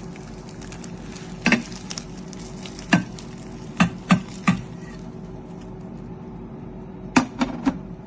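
Food sizzling steadily in a metal pan, with a utensil knocking and scraping against the pan a few times, in clusters near the middle and near the end.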